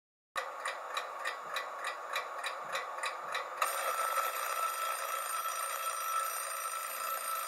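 Alarm clock ticking about four times a second, then its alarm ringing steadily from about three and a half seconds in.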